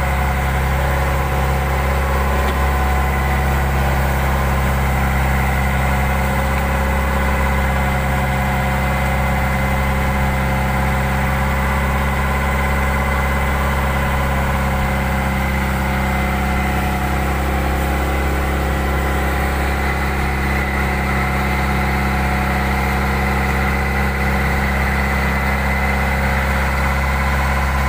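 Fishing boat's diesel engine running steadily at a constant speed, a low, even hum with no change in pitch.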